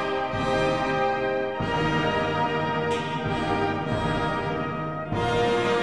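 Orchestral background music with brass, playing held chords that change about a second and a half in and again about five seconds in.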